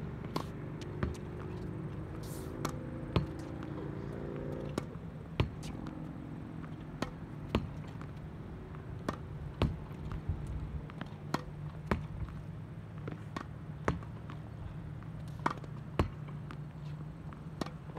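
Tennis ball rallied against a practice backboard. A sharp racket hit comes about every two seconds, with softer knocks of the ball off the wall and the court in between.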